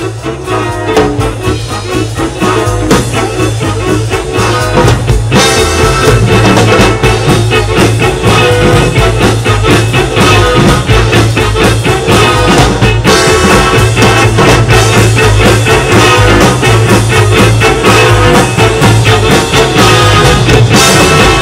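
Live big-band jazz: brass, saxophones, drum kit and congas playing together, the full band swelling to full volume about five seconds in.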